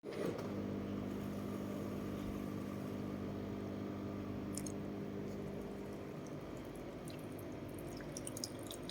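Automatic coffee machine humming steadily as it runs its cleaning rinse, the hum easing after about six seconds, with a few faint ticks near the end.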